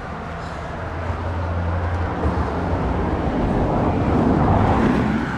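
Road traffic on a dual carriageway: a vehicle passes close by, its noise swelling to a peak about four and a half seconds in and then easing off, over a low steady engine hum.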